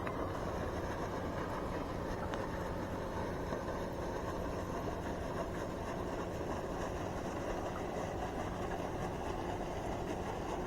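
A steady, even hum like a small motor running, with one sharp click right at the start.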